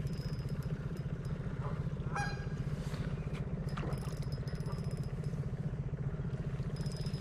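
A boat motor running steadily with a low, pulsing hum, and a short high squeak about two seconds in.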